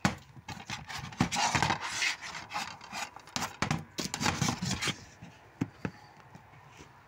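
Plastic DVD case being handled and turned over right at the microphone, rubbing and scraping against the fingers, with dense clicks and knocks; after about five seconds it quietens to a few isolated clicks.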